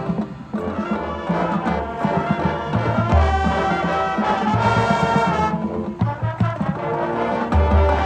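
A high school marching band playing, its brass holding chords over held low bass notes, with percussion strikes through it. The level dips briefly about half a second in.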